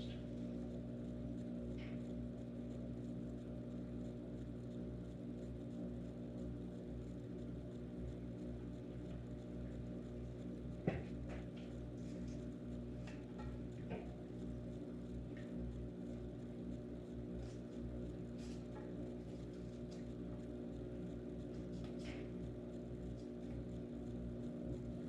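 Steady low hum with several held pitches, with a few light clicks and one sharp click about eleven seconds in.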